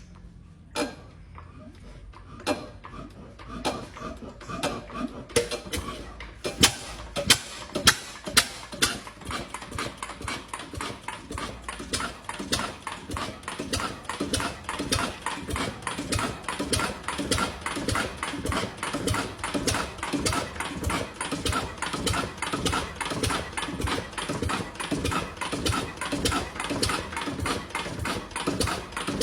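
Freshly overhauled old engine being started: a few separate knocks at first, some loud uneven firing a few seconds in, then it settles into a steady, fast, even running beat.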